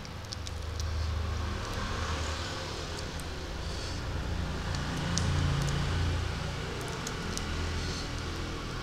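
Chewing picked up close on a clip-on microphone, a low muffled sound that swells and fades, with small sharp crackles from prawn shells being peeled apart by hand.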